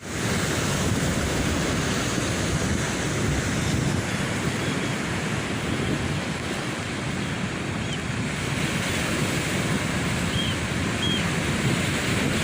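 Ocean surf washing onto a beach, a steady rushing wash with wind buffeting the microphone. A few faint short high chirps come through about halfway in and near the end.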